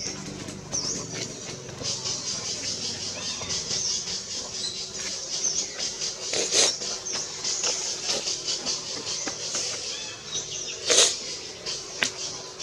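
Infant long-tailed macaque giving short, high-pitched squeaks over and over, with two louder harsh bursts about six and eleven seconds in.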